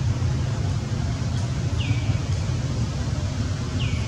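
A steady low rumble, with two short high squeaks that fall in pitch, about two seconds apart.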